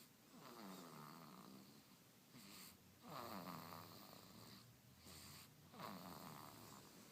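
Faint snoring: three slow snores about two and a half seconds apart, each one falling in pitch.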